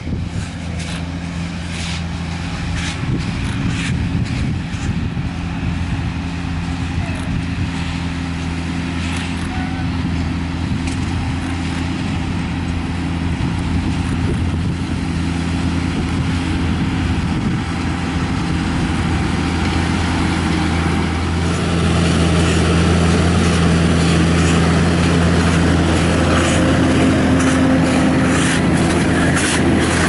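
Deutz 6160 P tractor engine running steadily under load while pulling a working Lely Welger RP 245 Profi baler-wrapper, with the baler's mechanical rattle over the engine hum. The sound grows gradually louder and is loudest through the last third.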